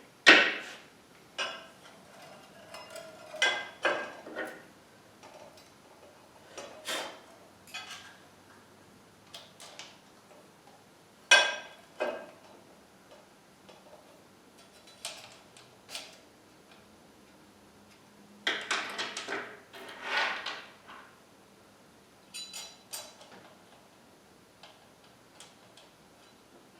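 Steel parts and hand tools clinking and knocking as they are handled and fitted together, in scattered single knocks with a longer run of clatter past the middle.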